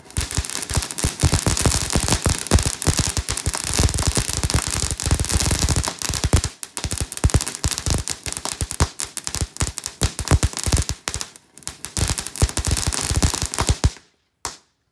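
A ground firework crackling and popping in a rapid, dense stream of bangs for about fourteen seconds, then cutting off suddenly, with one last pop just after.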